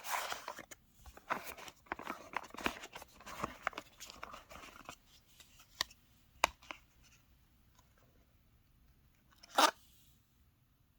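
Packaging being handled close up: dense crinkling and rustling, then two sharp clicks, and one short, louder rustle near the end.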